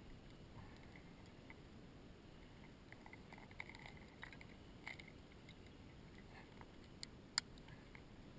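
Near silence, with faint scattered clicks and rustles of small movements, and one sharper tick about seven seconds in.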